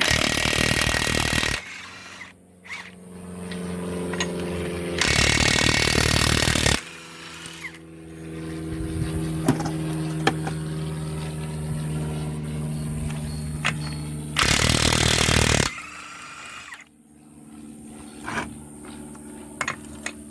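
Ridgid R86211B 18-volt brushless cordless 1/2-inch impact wrench hammering loose lug nuts torqued to about 450 ft-lb, in three bursts of one to two seconds each. A steady low hum runs between the bursts.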